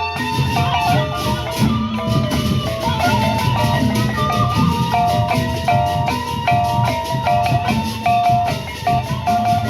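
Gendang beleq ensemble playing: large Sasak drums beating under a fast, even stream of cymbal strokes, with a short melodic figure repeating over and over.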